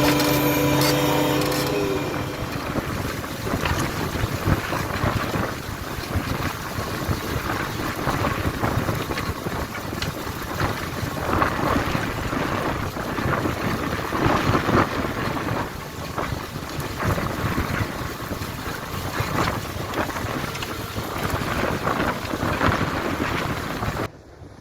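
A New Holland T7.210 tractor's engine hum is clear for the first couple of seconds, then wind buffeting the microphone covers it in a rough, gusty noise. The sound drops off abruptly near the end.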